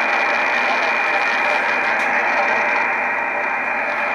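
Icom IC-S700 HF SSB transceiver receiving with no station coming through: its speaker gives a steady hiss of band noise and static.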